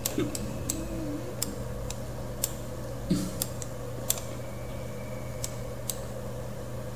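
Computer mouse clicking: about a dozen sharp, irregularly spaced clicks while spline vertices are selected and dragged, over a steady low electrical hum.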